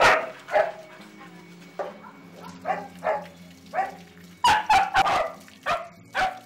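Dogs barking repeatedly in short, sharp barks, about a dozen in all, coming faster in the second half.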